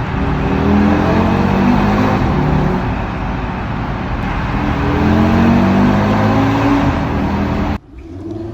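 Audi RS Q3's 2.5 TFSI turbocharged five-cylinder engine under hard acceleration, its pitch climbing steadily and dropping back at each upshift. Shortly before the end the sound cuts abruptly to a quieter level.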